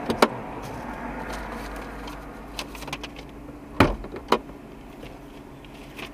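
A stopped car idling steadily, with a few sharp clicks and knocks from inside the cabin: two close together right at the start and two more around four seconds in.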